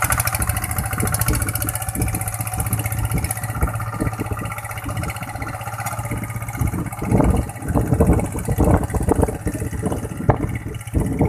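Kubota engine on a paddy-field tractor running steadily through a new steel exhaust as the machine works through flooded mud. From about seven seconds in, louder uneven noise comes in over the engine.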